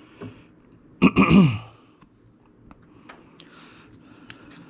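A man's short wordless vocal sound, falling in pitch, about a second in, like a throat clearing. After it come faint, scattered light clicks and taps as the plastic parts of a Glowforge print head are handled.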